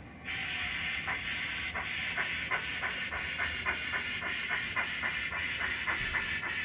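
Sound decoder in a model GWR pannier tank steam locomotive playing steam sounds. A hiss starts suddenly just after the start, and then steady exhaust chuffs come about three a second.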